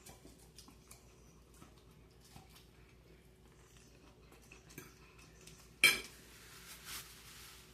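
A fork clinking and scraping against a dish while someone eats salad: faint scattered clicks, with one sharp clink about six seconds in.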